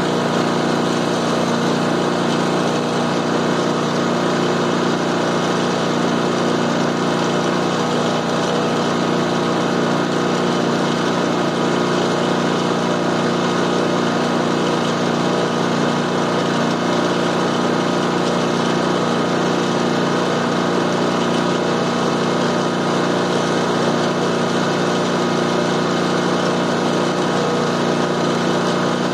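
Zero-turn riding mower engine running steadily at a constant speed, with no revving or changes.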